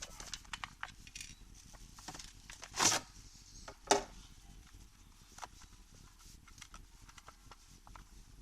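Small clicks and taps of chainsaw parts being handled, with a louder scrape about three seconds in and a sharp knock about a second later.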